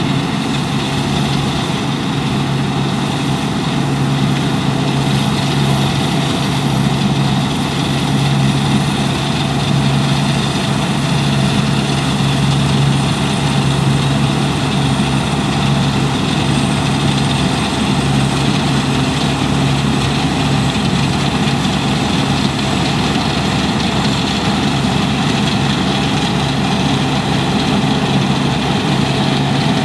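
Deutz-Fahr 6095 HTS combine harvester running steadily, its diesel engine humming under the noise of the working machinery.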